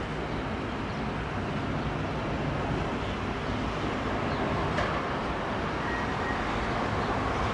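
Luftwaffe Airbus A310 jet flying low on approach with gear down: a steady low rumble of its turbofan engines, growing slightly louder.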